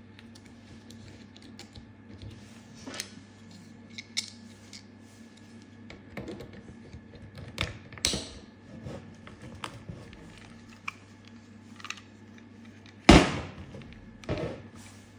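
Small clicks and light knocks of the plastic housing and parts of a Siemens 5SZ7 residual-current circuit breaker being handled and fitted back together. There is a louder knock about thirteen seconds in and another just over a second later.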